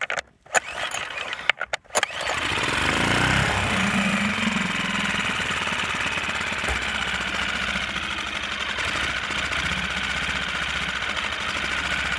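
Lehr propane four-stroke outboard being pull-started in neutral: a couple of seconds of separate pull strokes, then the engine catches, revs up briefly and settles into a steady idle. The idle screw has been turned almost to the end of its threads to keep the motor from stalling.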